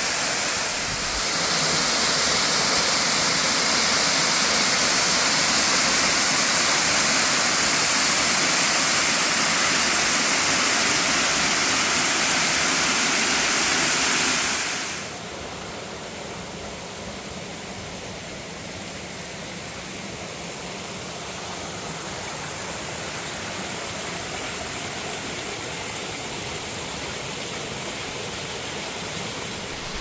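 A tall waterfall's water crashing onto rock, a steady loud rush. About halfway through it cuts suddenly to the softer, duller rushing of a mountain stream tumbling over boulders in small cascades.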